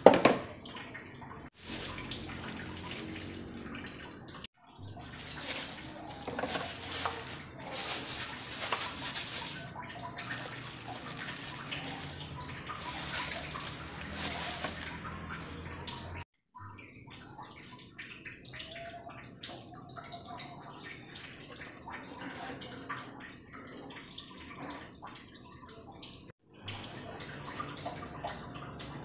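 Water splashing and swirling in an aluminium wok just after being poured in, with a steady watery hiss that is loudest in the first half and drops out abruptly several times.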